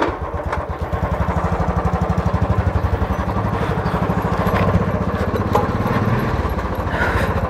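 Motorcycle engine running under way, an even, rapid beat of exhaust pulses.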